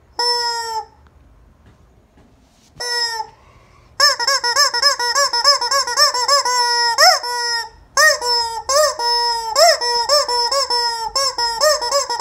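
Rubber squeaky chicken toy being squeezed: two short squeaks in the first few seconds, then a fast run of pitched squeaks, some rising and falling and some held a little longer.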